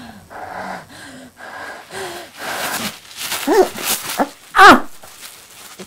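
A person's breathy wheezing, then a few strained whining cries, the loudest a short cry about four and a half seconds in.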